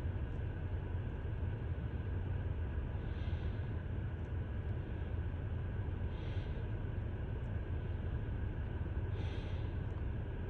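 Soft breaths about every three seconds, three in all, over a steady low rumble.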